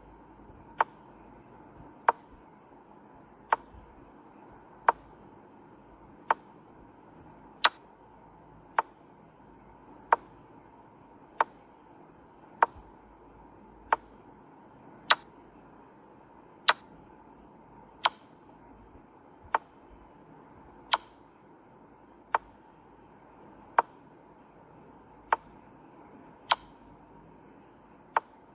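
Chess app's piece-move sound effect: one short click for each move as the game replays, about one every 1.3 seconds, some sharper than others.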